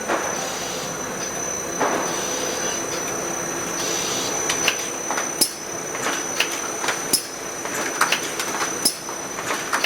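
Automatic pizza cartoning machine running: steady machine noise with a high whine over it, and repeated sharp clacks from its mechanism in the second half.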